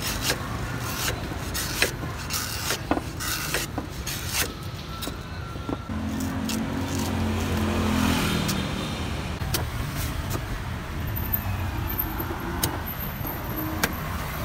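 Cleaver chopping and shaving the husk off a young green coconut on a wooden board, a sharp knock every second or so with gaps, over steady street traffic. A vehicle engine passes close by, loudest about eight seconds in.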